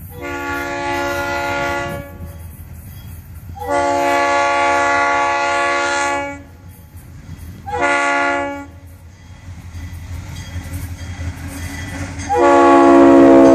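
Florida East Coast Railway diesel locomotive's air horn, a chord of several notes, sounding the grade-crossing signal: two long blasts, a short one, then a final long blast that starts near the end. A low rumble from the approaching train runs underneath.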